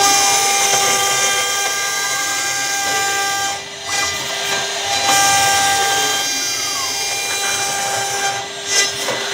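CNC router spindle running with a steady, many-toned whine while a 6 mm two-flute bit cuts through acrylic sheet, following the outline at 3000 mm per minute and 1 mm depth. A few short gliding tones come through, and the sound dips briefly twice, a little before the middle and near the end.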